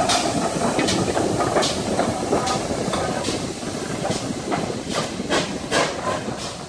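Ex-GWR 5700 class pannier tank steam locomotive moving slowly light engine, with steam hissing and a run of sharp clicks every half second to a second as it rolls over rail joints and points. The sound fades as the locomotive draws away.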